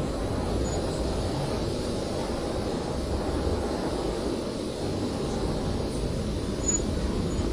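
Blizzard wind blowing steadily: a deep, low rushing rumble with a fainter hiss above it, unbroken throughout.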